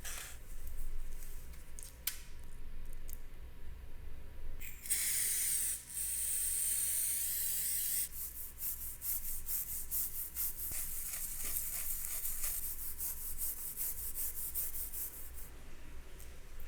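Hand-finishing work on pistol parts: a couple of sharp clicks, then a long spray hiss about five seconds in, then quick rubbing strokes repeating about four times a second for most of the rest.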